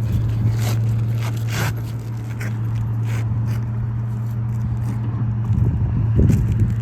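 Scattered clicks and scrapes of a caulk gun being worked as roofing caulk is dabbed under brittle asphalt shingle tabs, with a louder rustle near the end. A steady low hum runs underneath.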